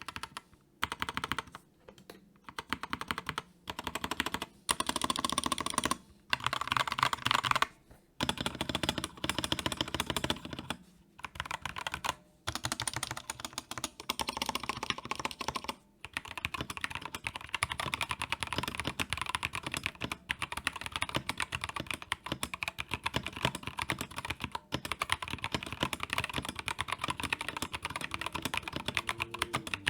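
Tester68 mechanical keyboard with Gateron KS-3 yellow switches, its modifier keys pressed in repeated short bursts with brief pauses for about the first half, then continuous fast typing. The stabilizers are still stock, not yet lubed, and the case has a tape mod and PE foam under the switches.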